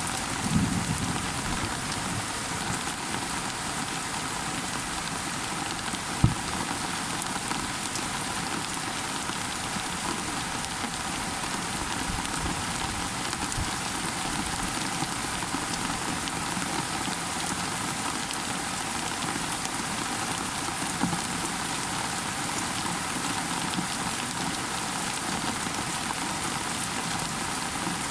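Steady rain falling and pattering on surfaces, with a single sharp knock about six seconds in.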